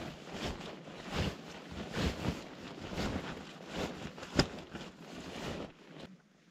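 Nylon tent flysheet rustling and flapping in irregular bursts as it is dragged and draped over the tent, mixed with wind buffeting the microphone, with one sharp snap about four and a half seconds in. It dies down near the end.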